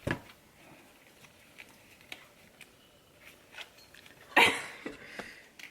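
Uno playing cards being shuffled and handled: a sharp click at the start, then light scattered ticks, with one louder short rustling burst about four seconds in.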